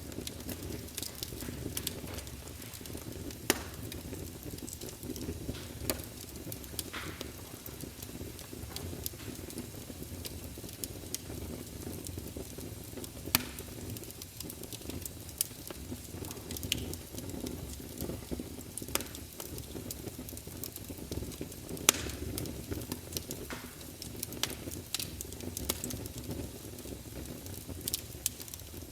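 Campfire crackling: a steady low rush of flame with irregular sharp crackles and pops. A few louder pops stand out, about three and a half seconds in, around thirteen seconds, and again about twenty-two seconds in.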